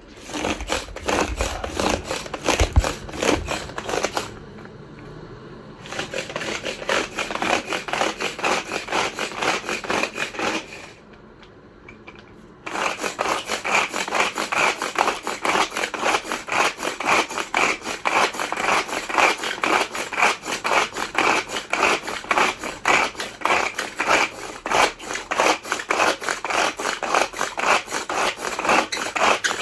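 A manual mini chopper worked by hand to mince raw pork: a rapid, even run of mechanical clicking strokes, broken by two short pauses, about four and eleven seconds in.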